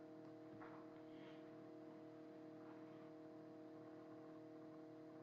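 Near silence: room tone with a faint steady hum, and a couple of faint brief sounds about a second in.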